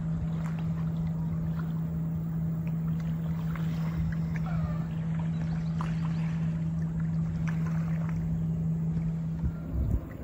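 A steady low motor hum at one unchanging pitch that stops shortly before the end, with a few short bird chirps over it.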